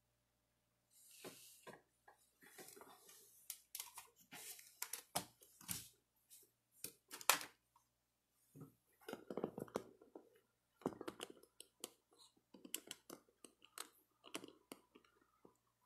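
Quiet, irregular clicks, taps and rustling of hands handling things close to the microphone, starting about a second in.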